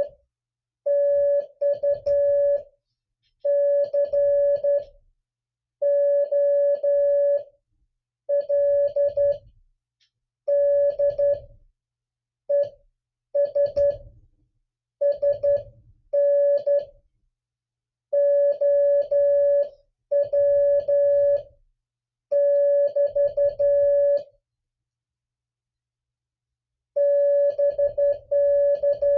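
Morse code played as a single steady beep, keyed on and off in dots and dashes grouped into characters and words, with faint clicking along with the tones and a pause of about two and a half seconds near the end. It is one side of an amateur-radio CW contact, sent for copy practice.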